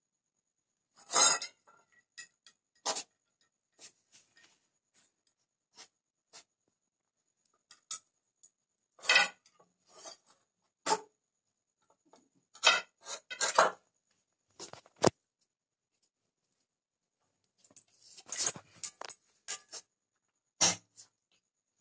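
A cat pawing at a small ball inside a stainless steel bowl: irregular clinks and knocks of the ball and paw against the metal bowl, with quiet gaps between.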